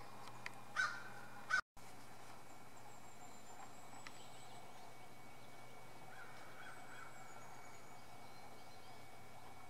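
Two short, loud honk-like bird calls about a second in, the sound cutting out for a moment right after the second. After that, a steady outdoor hiss with a few faint, high, thin bird calls.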